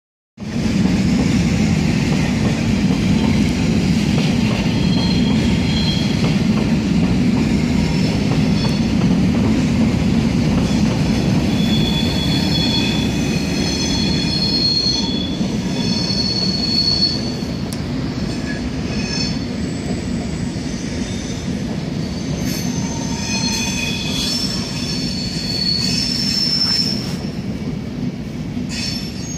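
Passenger train rolling slowly into a station over the points, with a steady low rumble and its wheels squealing in several high, shifting tones that come and go.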